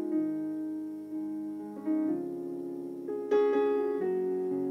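Slow keyboard music: soft piano chords held and changing every second or two, with a brighter chord struck just past the middle.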